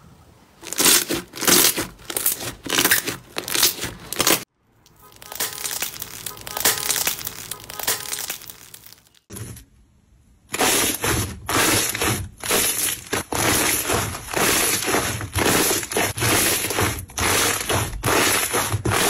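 Slime being pressed and squeezed close up, making crackling, crunching strokes that come in quick runs. The run changes abruptly twice, as one clip gives way to the next.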